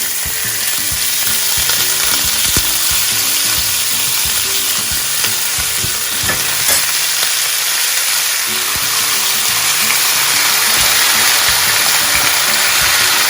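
Beef sizzling in hot oil with fried onions in a cooking pot: a loud, steady frying hiss, with a couple of light knocks about two and a half and seven seconds in.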